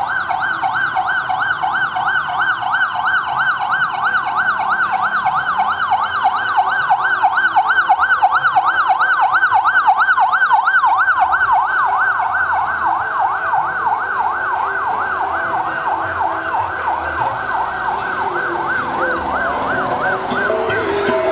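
Police car's electronic siren in fast yelp mode, a loud warble sweeping up and down about four times a second without a break.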